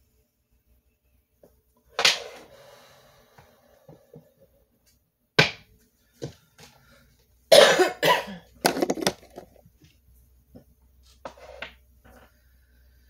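A person coughing several times in short separate bouts, with a cluster of coughs in the middle.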